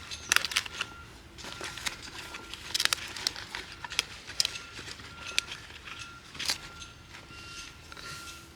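Banana leaves being handled and torn: irregular rustling and crackling broken by sharp clicks.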